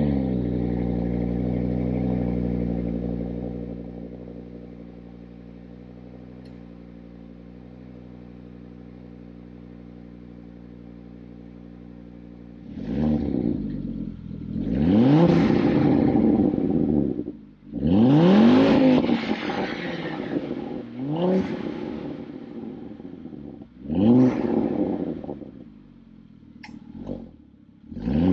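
A car engine that has just started runs at a fast, louder idle for about three seconds, then settles to a steady, quieter idle. From about halfway through it is revved up and let fall back several times.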